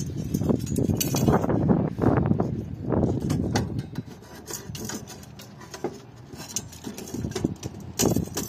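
Kitchen handling noise: utensils and dishes clinking, knocking and rubbing. The clatter is busy for the first three and a half seconds, then thins to scattered, quieter clicks.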